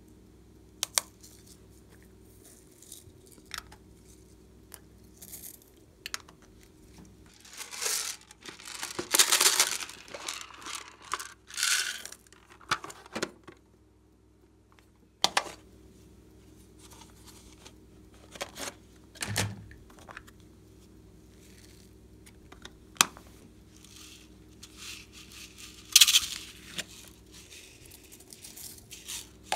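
Hard plastic toy containers handled and clicked open, with sharp clicks and short bursts of rattling and rustling. Near the end, glitter and sequins are shaken out of a small plastic container onto slime.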